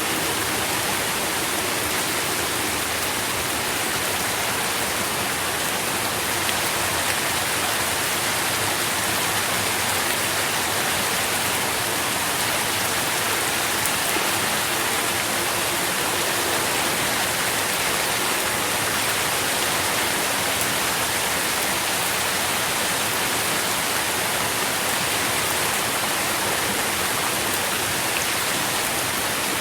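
Steady rain falling on leaves and the ground, an even hiss of dense pattering drops.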